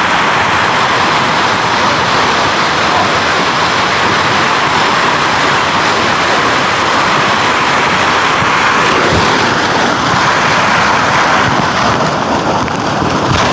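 Waterfall with loud, steady rushing of falling water.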